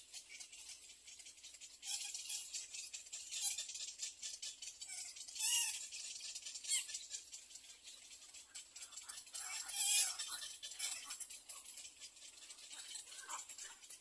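Egret nestlings' begging calls: fast, dry, rattling clicks in bursts, loudest about two, five and a half and ten seconds in, with a few short lower call notes near the end.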